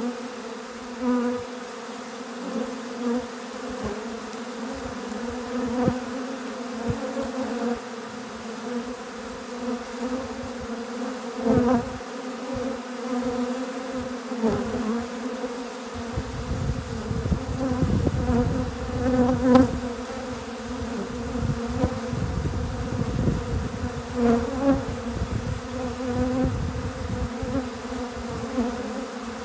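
Honey bees swarming a feeder in a dense, steady buzz, with single bees now and then flying close by and briefly louder. A low rumble joins in just past the middle and fades a few seconds later.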